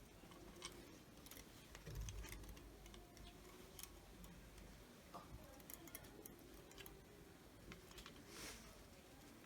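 Faint, irregular clicks and light taps from small parts of a multi-plug power strip being handled during repair, with a soft low thump about two seconds in, over near silence.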